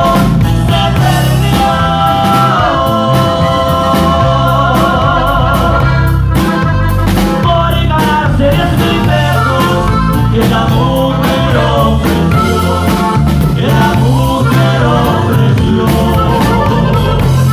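Music: a song with a sung, wavering vocal line over bass, drums and guitar at a steady beat.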